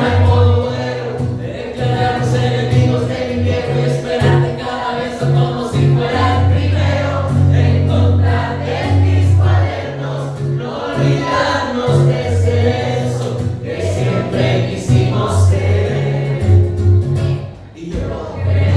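A man singing live to his own acoustic guitar, with deep held bass notes under the melody; the music dips briefly just before the end.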